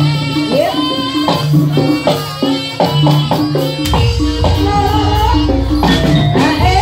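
Live jaranan senterewe music: drum strokes under a pitched melody, with a deep bass coming in about four seconds in.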